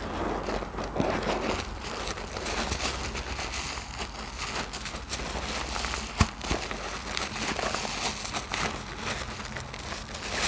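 Bar of soap being lathered in thick soapy foam: a dense, continuous wet crackling, with one sharper snap about six seconds in.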